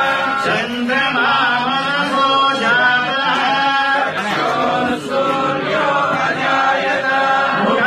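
A group of voices chanting a Hindu temple mantra together in a steady, continuous chant.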